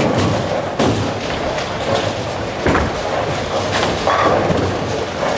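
Bowling alley din: several heavy thuds of bowling balls landing on the lanes, the heaviest a little past halfway, over a steady rumble of balls rolling and pins falling across many lanes.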